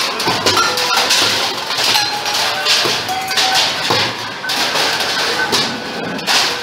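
Stainless steel plates clattering and clanging as they are flung and stacked into a tub: a dense, continuous run of metallic clanks, each with a short ringing tone.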